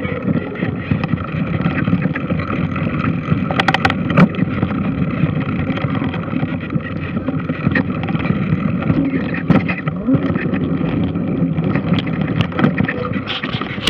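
A large washing machine running: a steady mechanical drone with scattered clicks and knocks.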